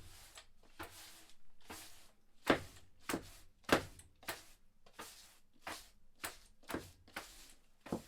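Irregular knocks and clunks in a small room, about one every half second to a second, a few of them sharper and louder, like tools or pieces of material being handled and set down.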